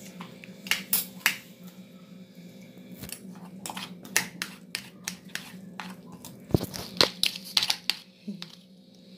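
Metal spoon and fork clicking and scraping against a plastic plate as boiled chicken breast is shredded, in irregular clusters of sharp clicks, most of them around the middle and near the end.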